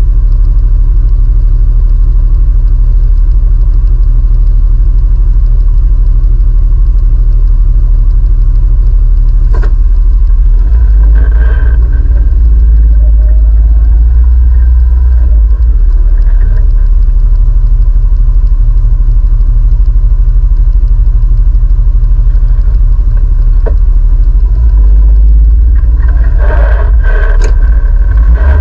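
Side-by-side UTV engine running with a steady low drone, heard from inside the machine, with a few short clattering knocks.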